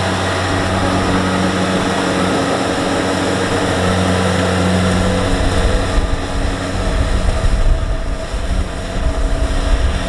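Kubota DC-70 Plus combine harvester's diesel engine and threshing machinery running steadily under load as it cuts rice. From about five seconds in, a rougher, fluctuating low rumble takes over the steady hum.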